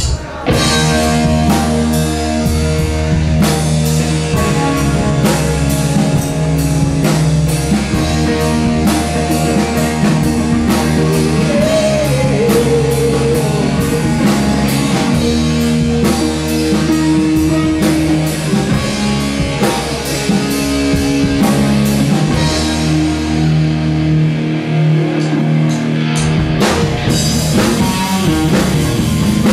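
Live rock band playing: drum kit keeping a steady beat under guitar and bass. The low bass drops out for a few seconds near the end, then the full band comes back in.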